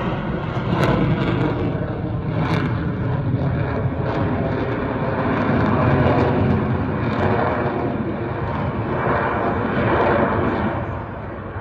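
Lockheed Martin F-35 Lightning II's F135 turbofan jet engine, a loud steady jet noise that swells and eases slightly, dropping off a little near the end.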